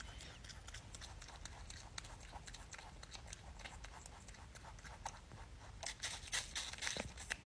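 Lop-eared rabbit crunching a green apple: a fast run of small, crisp chewing clicks that grows louder and denser near the end.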